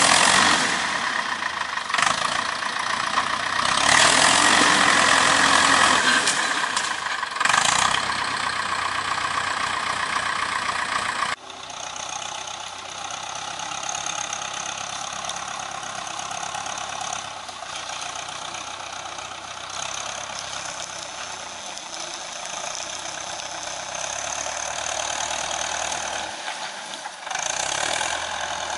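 Ursus C-360 tractor's four-cylinder diesel engine running steadily while pulling a trailer loaded with firewood. It drops suddenly to a quieter level about a third of the way in and stays lower to near the end.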